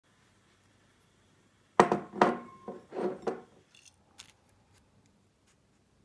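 Ceramic bowls set down on a tabletop: about four clattering knocks and clinks in quick succession, the first with a brief ring, then a couple of faint taps.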